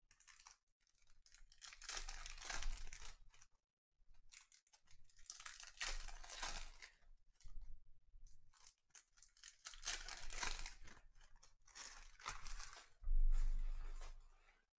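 Foil trading-card pack wrappers crinkling and crumpling as they are gathered up by hand, in several separate bursts. The loudest crinkle, with a dull thud, comes about 13 seconds in.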